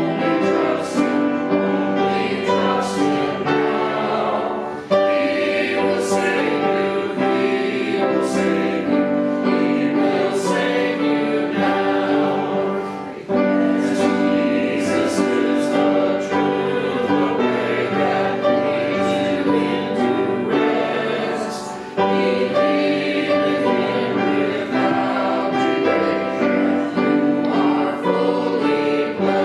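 Congregation singing a hymn in unison with instrumental accompaniment, in phrases broken by short breaths about every eight seconds.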